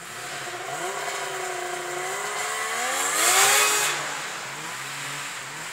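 Snowmobile engine revving up as it approaches, passing loudly close by about three and a half seconds in, then fading with falling pitch as it goes away.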